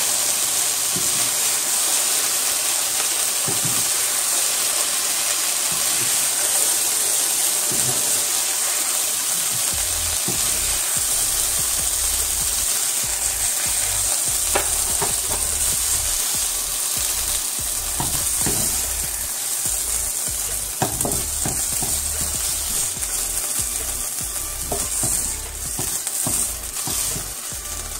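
Chicken breast strips sizzling in a hot nonstick frying pan, their cooking juices boiled off so they are now browning, while a wooden spoon scoops and scrapes them out with scattered light knocks against the pan.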